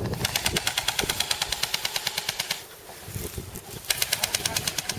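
Airsoft electric gun firing full-auto in two bursts, a rapid run of sharp cracks at about ten shots a second for roughly two and a half seconds, then a second burst starting near the end.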